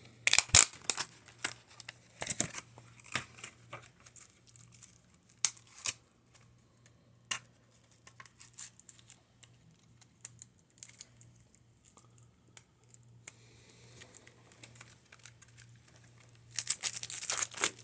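Plastic packaging of a new SSD crinkling and tearing as it is opened, with scattered clicks and taps of handling, and a louder burst of crinkling near the end.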